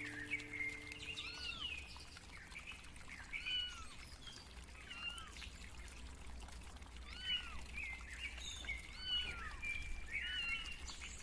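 Kittens mewing softly: many short, high-pitched arched mews, some overlapping, repeating every second or so over a faint low hum.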